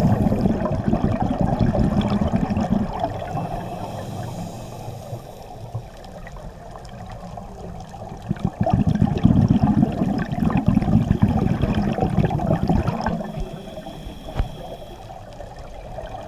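Scuba exhaust bubbles from a diver's regulator, heard underwater: two long stretches of loud bubbling, one at the start and one from about halfway, with quieter bubbling between them as the diver breathes in.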